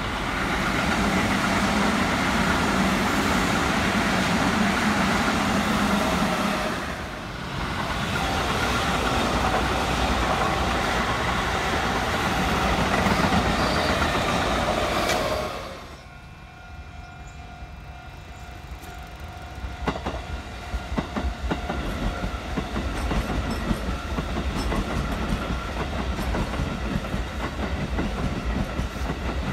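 Keikyu red electric commuter trains passing close by, first a Keikyu 800 series, later a 2000 series. For about the first half there is a loud, dense rush of a train going past. It drops off suddenly, and the rest is quieter running with a steady whine and wheels clacking over rail joints.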